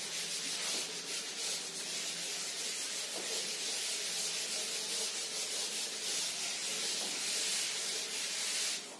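Chalkboard duster wiping a blackboard in repeated strokes, a steady scratchy hiss that stops just before the end.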